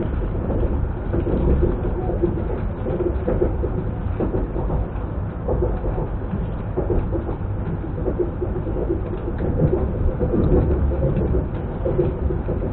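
Running noise of an ES2G Lastochka electric multiple unit heard from inside the carriage: a steady rumble of the wheels on the rails, with a humming tone that comes and goes.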